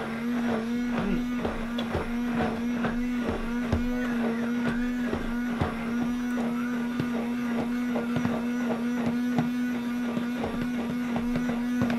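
Stick blender (immersion blender) running steadily in thick hot-process soap batter: a constant motor hum, with irregular clicks and knocks as the blade churns the stiff paste.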